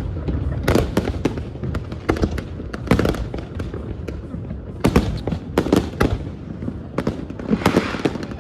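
Aerial fireworks bursting at close range: an irregular series of sharp bangs, several a second at times, over a steady low rumble.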